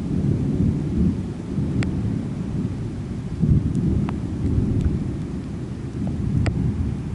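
Rolling thunder, a continuous low rumble that swells about three and a half seconds in, with a few sharp ticks of raindrops.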